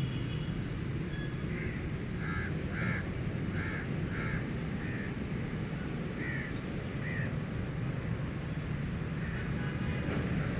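A run of short, harsh animal calls, about two a second for a few seconds, then two more a little later, over a steady low rumble.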